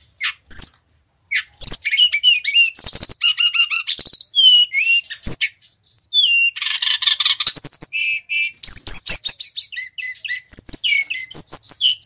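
Male brown-chested jungle flycatcher singing a fast, varied song of chirps, whistled slurs and quick trills, with a scratchy rattling passage midway. The song is full of mimicked phrases from other birds. It opens with a few separate notes, then runs almost without a break.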